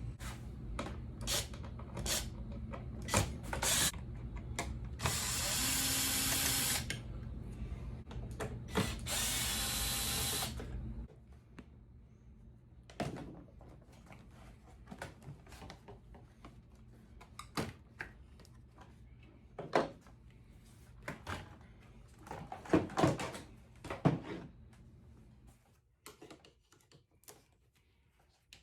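A power tool runs in two bursts of about two seconds each while a car seat is being taken apart, amid scattered clicks and knocks of tools and seat parts being handled. A low steady hum underneath stops about eleven seconds in.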